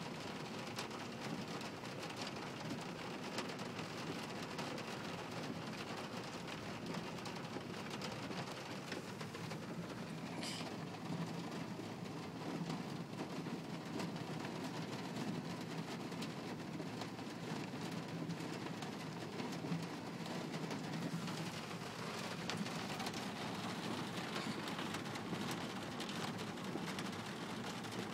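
Steady rain heard from inside a car, with a low hum underneath and a brief high chirp about ten seconds in.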